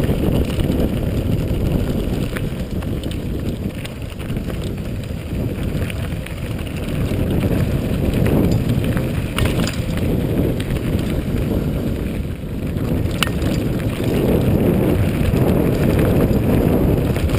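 Wind buffeting the microphone of a camera on a mountain bike riding fast down a gravel dirt track, with the tyres rolling over stones and a few sharp clicks and rattles from the bike. The rumble grows a little louder near the end.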